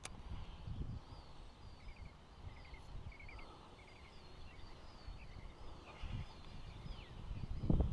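Wild birds singing: a steady series of short chirps and wavy whistled notes, over a low outdoor rumble. A brief click sounds at the very start, and a dull low thump comes near the end.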